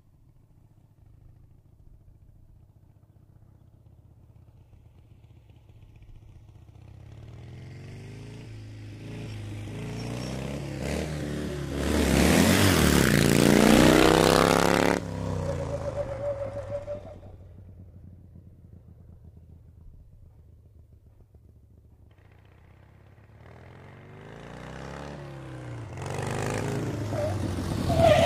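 Motorcycle engine growing louder as the bike approaches, loudest about twelve to fifteen seconds in, then cutting off suddenly and fading; a second motorcycle approach builds up near the end.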